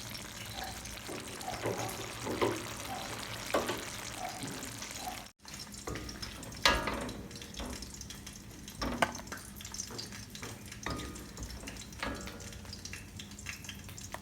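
A cooking spoon scraping and clinking against a pan as the braised chicken and potatoes in black soy sauce are served out, with a faint sizzle from the pan. It is continuous for about five seconds, then quieter, with a few separate knocks.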